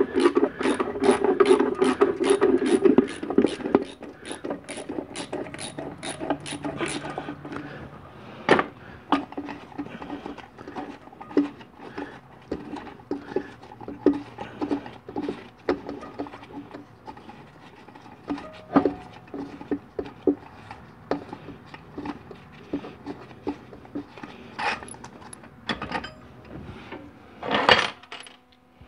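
A ratchet wrench clicking through a fast, even run of strokes for about seven seconds, working a tool down inside a 4L60E transmission case. It is followed by scattered metal clicks and scrapes, and a louder clatter of metal parts near the end.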